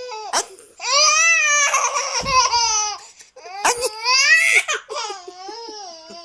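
Baby laughing hard: two long, high, wavering squeals, then a run of quick laughs that fall in pitch.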